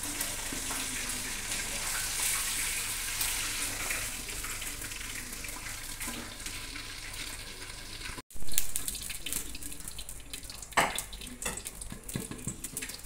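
Fish frying in hot oil in a lidded steel wok, a steady sizzling hiss. About eight seconds in the sound cuts out for an instant and returns with a loud burst, followed by irregular crackles and clicks.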